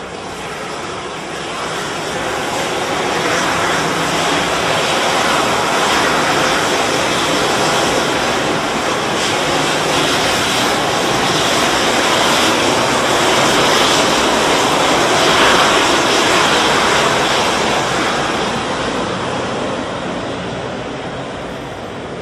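DSPA 5 aerosol fire-suppression generator discharging into a burning compartment: a loud, steady hissing rush as the aerosol floods the room to put out the fire. It swells over the first few seconds, is loudest in the middle, and eases near the end.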